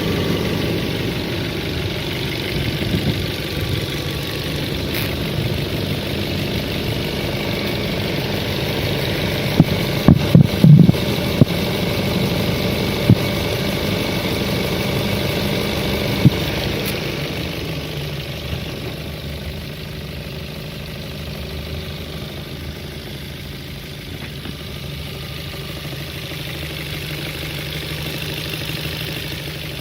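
An engine idling steadily, with the unexplained knock the clip is about: a quick cluster of sharp knocks about ten seconds in, then single knocks a few seconds apart. The running gets somewhat quieter past the middle.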